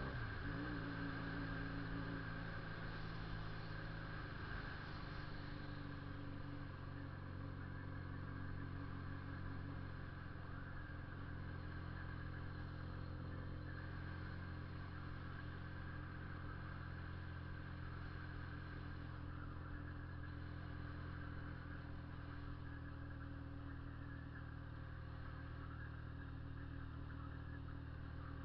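Honda CB 400 II motorcycle's air-cooled parallel-twin engine running steadily with a strong exhaust rumble, its pitch wavering briefly near the start and then holding even.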